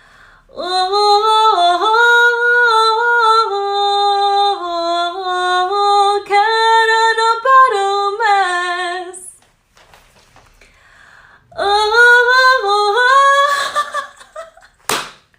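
A girl's voice singing unaccompanied, holding long notes that step up and down in pitch, in two phrases with a pause of about two seconds between them.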